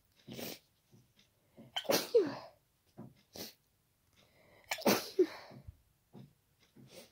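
Two loud, wet sneezes about three seconds apart from a person with a head cold. Each ends in a cry that drops in pitch, and there are short breaths and sniffs between them.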